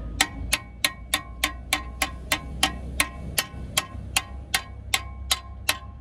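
Metal bar struck repeatedly into a Citroen C1's catalytic converter through the lambda sensor hole, smashing up the ceramic catalyst core: sharp metallic knocks at a steady rhythm of about three a second, each with a short ring.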